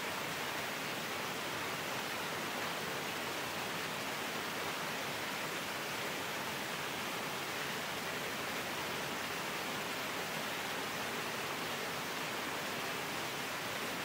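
Small waterfall splashing down onto rocks, a steady even rush of falling water.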